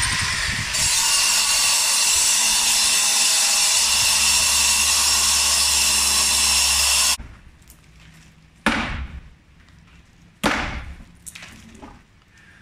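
Handheld angle grinder cutting into the solid masonry of a balcony, a loud steady whine that cuts off about seven seconds in. Then come two sharp knocks about two seconds apart and a fainter one after.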